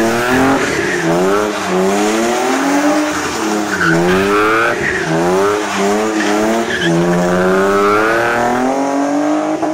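BMW E36 328i's 2.8-litre straight-six revving up and down over and over as the car spins donuts, its pitch rising and falling every second or so, with the rear tyres sliding on wet tarmac.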